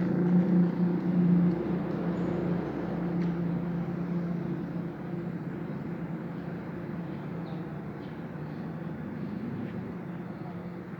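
A bus engine running with a steady low drone that slowly fades as the bus moves away.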